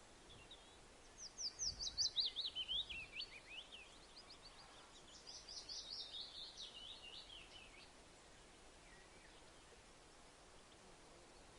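A bird singing two phrases a couple of seconds apart, each a fast run of sharp high notes that falls in pitch, over a faint steady hiss.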